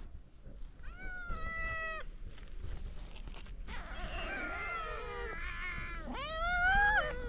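Several young cats meowing. One long meow comes about a second in, overlapping meows from two or more cats follow around the middle, and a louder long meow that rises and then falls comes near the end.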